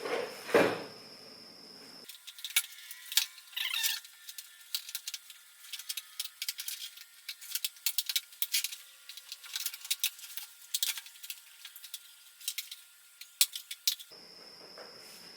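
Two knocks, then many scattered light clicks and rattles of the hopper ring and its fittings being fumbled into place on a wood chipper's hopper.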